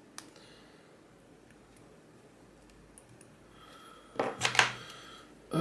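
Faint metal ticks, then a short, loud scrape and clicks about four seconds in: a small metal tool working against a disassembled lock cylinder to pry out side pins stuck in their chambers.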